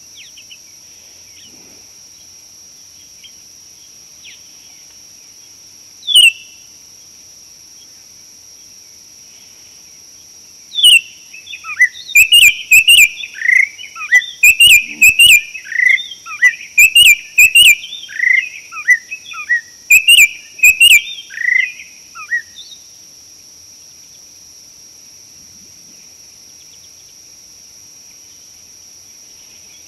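A bird calling close by: one chirp about six seconds in, then a rapid, loud run of short chirps, many falling in pitch, for about ten seconds before it stops. A steady high-pitched insect drone runs underneath.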